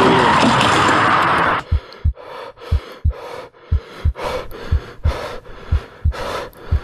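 Race-car and tyre-skid noise that cuts off abruptly about a second and a half in, giving way to a heavy, gasping breathing sound effect over deep, evenly spaced heartbeat thuds, about three a second.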